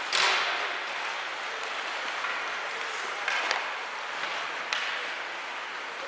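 Ice hockey game sound in an arena: a steady noisy wash, with a loud burst of hiss just after the start and a few sharp knocks in the second half.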